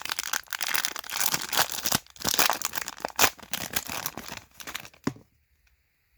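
Plastic wrapper of a trading-card hanger pack crinkling and tearing as it is handled and opened, stopping about five seconds in.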